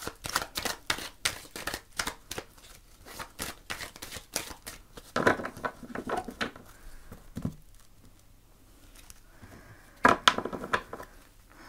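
A deck of oracle cards being shuffled by hand: a quick run of small card clicks, then a few louder rustling bursts as cards slide against each other and one is drawn from the deck near the end.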